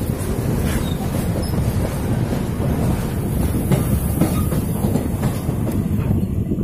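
A passenger train running at speed, heard from an open door or window: a loud steady rumble of wheels on the rails with scattered clattering knocks, the rush echoing off a container freight train passing close alongside. Near the end the rushing thins out as the last freight wagon clears.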